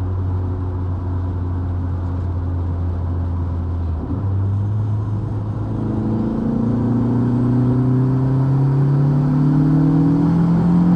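Turbocharged 1.8-litre 20-valve four-cylinder engine of a Mk2 Golf driving on the road: a steady engine note, a small step up in pitch about four seconds in, then revs climbing steadily under acceleration for the rest.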